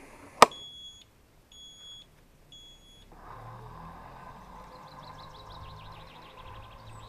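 Worx Landroid robotic lawn mower: a sharp click, then three short high beeps about a second apart as it takes the command to go back to its base. About three seconds in, its motors start with a steady whir as it drives off.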